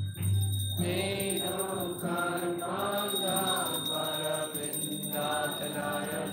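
Devotional chanting: a voice sings a slow Hindu prayer in long, wavering held notes, coming in about a second in over a steady musical backing.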